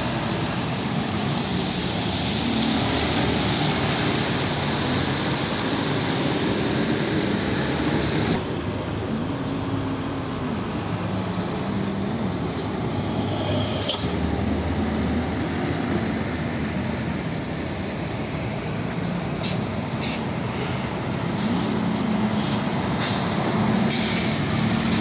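Heavy diesel trucks driving past on a wet road, their engines running with pitch rising and falling and their tyres hissing on the water. A few short sharp knocks stand out, one near the middle and two together later on.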